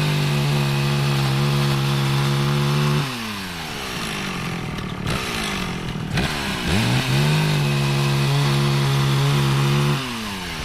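Vintage McCulloch 800 Pro two-stroke chainsaw revved to a steady full-throttle scream twice, each time for about three seconds, dropping back to a low idle in between and again near the end.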